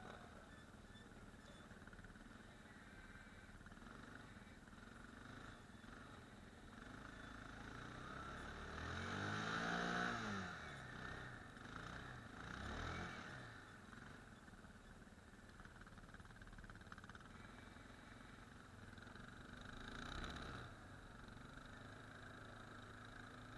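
ATV engine running at low level, revving up and falling back about halfway through, briefly again a few seconds later, and once more near the end.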